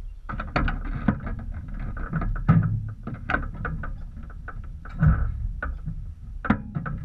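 Irregular clicks, knocks and rattles, with a few dull thumps, from the ultralight's airframe and camera mount being handled close to the camera, before the engine runs.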